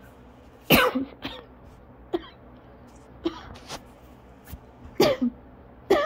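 A person in an asthma coughing fit, coughing over and over in short, sharp coughs. The loudest comes just under a second in, with another strong cough near the end.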